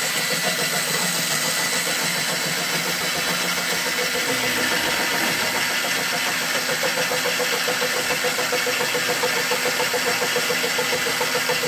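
Home-built line-boring rig running steadily: an electric motor turns a boring bar that takes rough cuts through the weld-built-up bore of a cast-iron windmill gear housing. A fast, even ticking runs through the steady machine sound from about four seconds in.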